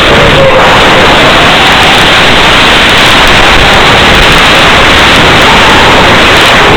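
Loud, steady static hiss from the audio channel of an analog FPV video receiver, with a faint wavering tone underneath.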